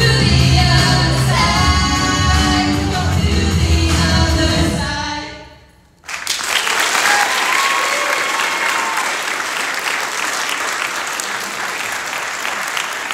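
Two singers finish a pop song into microphones over amplified accompaniment with a strong bass line; the music fades out about five seconds in. Then applause starts suddenly, with some cheering.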